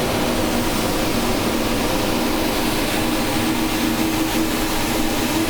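Steady roar and hiss of a multi-jet propane-oxygen glassworking hand torch burning, with a steady low hum underneath.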